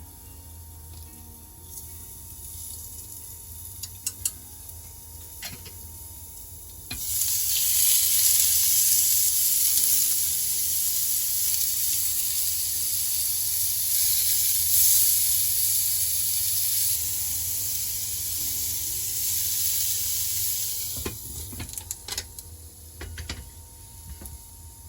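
Food sizzling in a frying pan: a steady hiss that starts suddenly about seven seconds in and dies away some fourteen seconds later. A few light clicks come before and after it.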